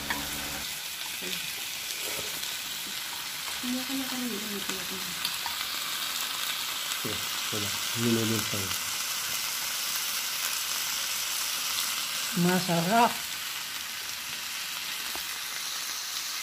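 Slices of meat sizzling steadily in oil on a round nonstick grill pan.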